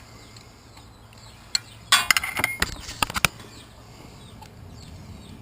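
Metal hand tools clinking and rattling: a few single clicks, then a quick cluster of sharp clicks and rattles about two seconds in.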